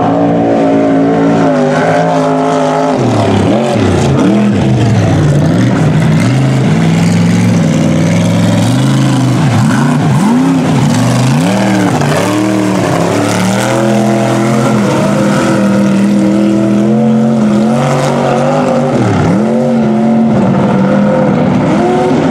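Engines of lifted mud trucks running hard as they drive through a mud pit, the revs rising and falling over and over while the tyres spin in the mud.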